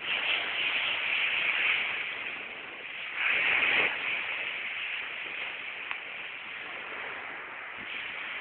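Sea surf washing onto the beach, a steady hiss of waves that swells once about three seconds in.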